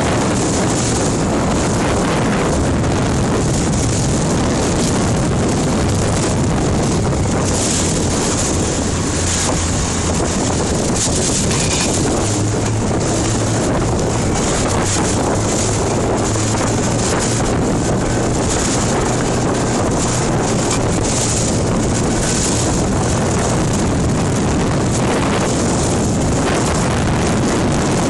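Inflatable boat running at speed: a steady low motor hum under heavy wind buffeting on the microphone and the rush of water off the hull.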